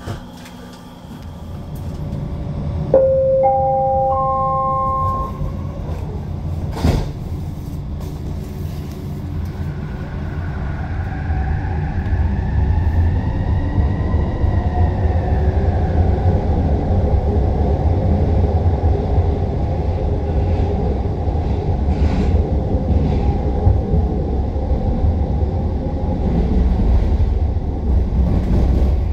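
SkyTrain car running along the track, its wheels and motors making a steady low rumble that swells as it picks up speed. A three-note chime steps upward about three seconds in, and a motor whine rises and falls in the middle.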